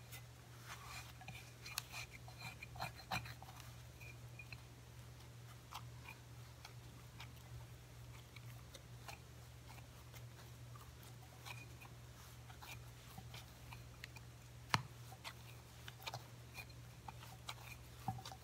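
Faint sticky clicks and squelches of a soft yeast dough being mixed and kneaded by hand in a glass bowl, over a steady low hum; one sharper knock about fifteen seconds in.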